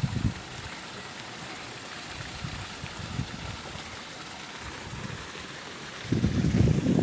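Water from a small garden waterfall running steadily, with wind buffeting the microphone briefly near the start and again, louder, from about six seconds in.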